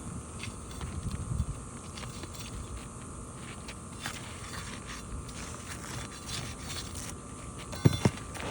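A roofing nail being worked out from under an asphalt architectural shingle: scattered metal clicks and scrapes of the tool against the nail and shingle, with a couple of sharp knocks near the end.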